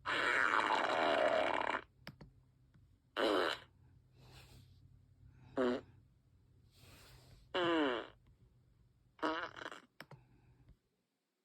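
A series of imitated fart noises: one long one at the start, then four short ones about two seconds apart, several of them sliding down in pitch.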